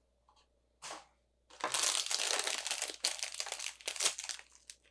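Packaging of a miniature Magic 8 Ball toy being opened by hand. After a quiet start with one brief rustle, a dense run of crinkling and crackling begins about a second and a half in and lasts almost to the end.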